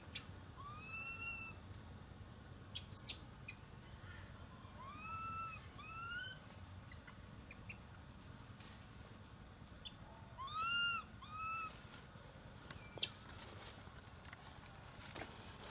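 A young monkey giving about five short, clear, rising-and-falling coo calls in three groups. A few sharp knocks, the loudest sounds, come about three seconds in and again near the end.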